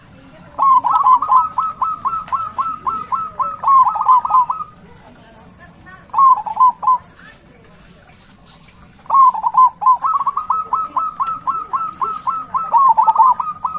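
Zebra dove cooing its staccato song: a long run of quick repeated coo notes, a short phrase a few seconds later, then another long run near the end. Faint high chirps of other small birds sound in the gaps.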